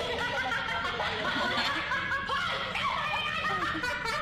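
Several young women laughing and giggling together, overlapping, with bits of chatter mixed in.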